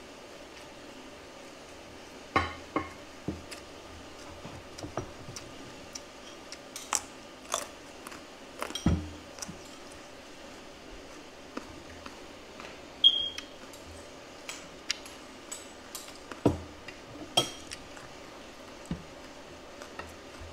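Mealtime sounds: irregular clinks and taps of a metal spoon and fork against a plate, with chewing in between.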